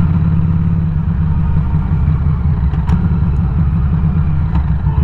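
Harley-Davidson Street 500's liquid-cooled Revolution X V-twin running steadily under way, a continuous low rumble with no change in pace.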